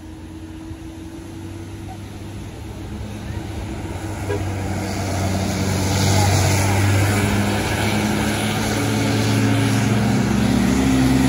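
Heavy diesel vehicle approaching, its low engine drone growing steadily louder and a rushing hiss building from about halfway through. No horn is sounded.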